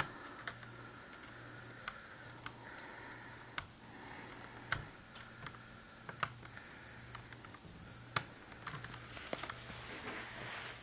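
Scattered light clicks and taps of a small screwdriver and tiny screws being worked into the laptop screen's side brackets, coming irregularly about one or two a second.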